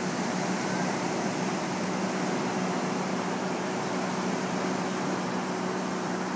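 A steady mechanical hum, like a small motor running at constant speed, over an even, constant hiss.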